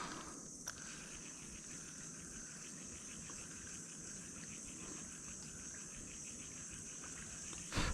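A steady, high, even chorus of insects in the background, pulsing rapidly. A faint click comes a little under a second in and a short knock just before the end.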